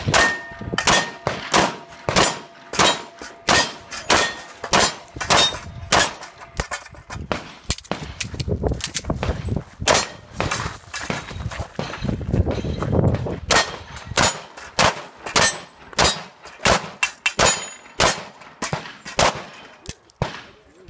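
Pistol fired in quick strings at steel plates and poppers, each hit answered by a ringing clang of steel, with a few short pauses between strings.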